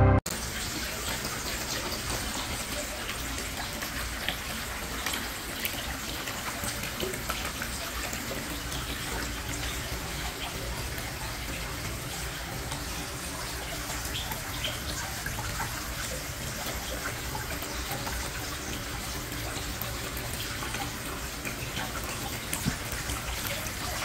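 A small pump-fed backyard waterfall feature runs steadily. Water trickles and splashes down its carved spray-foam rocks into the pool below.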